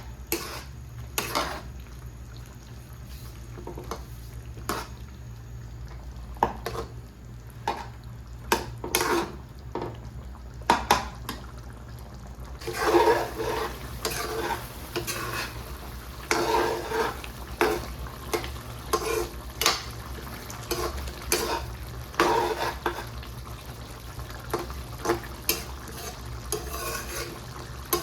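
A utensil stirring and scraping food in a karahi pan, with repeated clinks and scrapes against the metal, over a low steady hum. The scraping gets louder and rings more from about halfway through.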